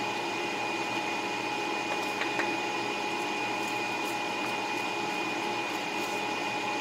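Steady whirring hum of a small motor or fan, with a thin high whine held at one pitch. A faint knock or two about two seconds in as a kitchen knife slices through a sushi roll onto a wooden cutting board.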